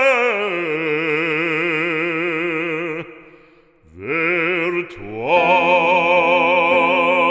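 A solo singer in operatic style, singing a French hymn and holding long notes with strong vibrato. The voice trails off about three seconds in, then comes back with a note that climbs in pitch and is held to the end.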